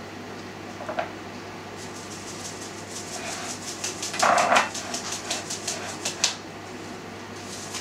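Dried herbs shaken out of a small packet into a glass jar: a quick run of light, crisp taps and rustles, about four or five a second, for several seconds. About four seconds in there is one short, louder bark-like sound.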